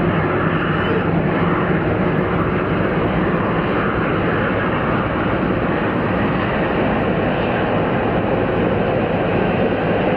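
Jet aircraft engines running steadily, an even, loud rush of noise that holds its level throughout.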